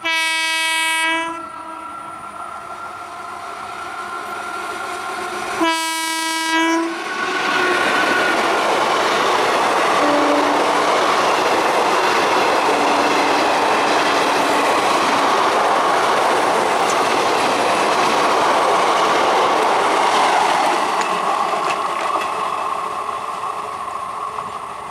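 Electric passenger train sounding its horn twice, a short blast at the start and another about six seconds in, then running past loudly for about fourteen seconds before its noise fades near the end.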